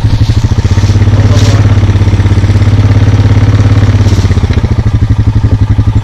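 Small vehicle engine idling with an even putter, speeding up slightly about a second in and settling back to idle near the four-second mark.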